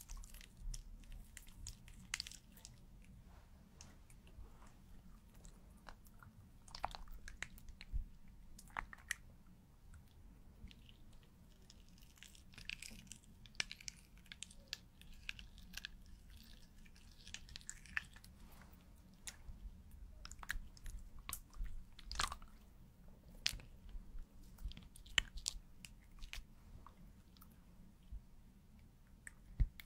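A paint pen drawing close to the microphone on a clear sheet, making faint scratchy strokes and scattered light taps as lines and dots are added.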